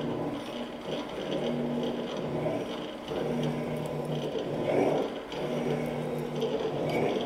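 Morey 12-inch vertical shaper running, its ram stroking the tool down and up in a steady cycle about every two seconds, with a hum that comes in on part of each stroke.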